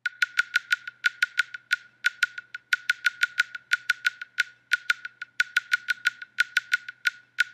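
Percussive music of sharp clicks, all on the same high note, in a quick uneven rhythm of about five a second, starting suddenly out of silence.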